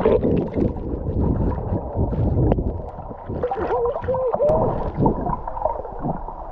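Underwater rushing and low rumble of water moving over a camera held by a snorkeler, with a few short wavering moans about four seconds in.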